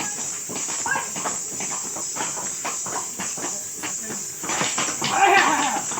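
Marwari horse's hooves stamping irregularly on the ground during a horse dance, with people's voices and a louder call about five seconds in.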